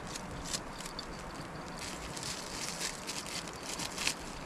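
Light crackling and crinkling: a wood fire burning under a wok, and a small plastic packet being handled and torn open by hand. The clicks come thicker from about two seconds in.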